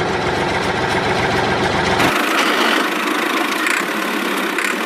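Tractor engine idling steadily with a knocking beat. About two seconds in, its deep rumble drops away abruptly, leaving a thinner running sound.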